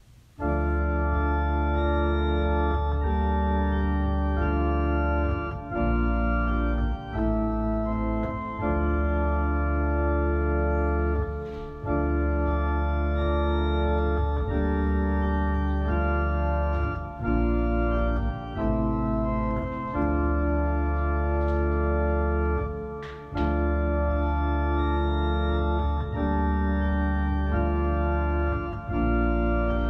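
Organ playing slow, sustained chords over a deep pedal bass, the chords changing every one to three seconds, as the instrumental introduction to a sung responsorial psalm.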